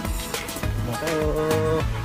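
Upbeat background music with a steady beat of about two strokes a second and a held melody note from about halfway through.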